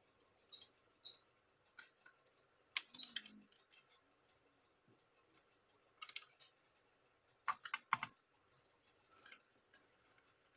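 Light clicks and taps of a small screwdriver and screws on the plastic underside of a Dell Inspiron laptop as its back screws are taken out, coming in short clusters every second or two.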